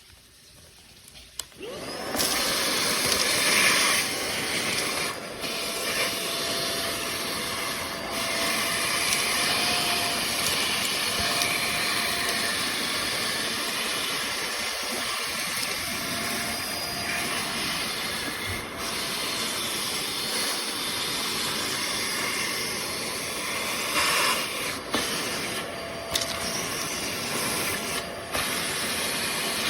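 Tineco Pure ONE S11 cordless stick vacuum switching on with a short rising whine about two seconds in, then running steadily with a loud, even rushing hiss.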